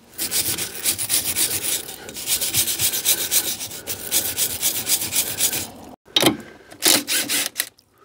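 Hand wire brush scrubbing the rusty outer face of a van's rear brake drum in rapid back-and-forth strokes. The scrubbing stops about six seconds in, followed by a few short separate scrapes.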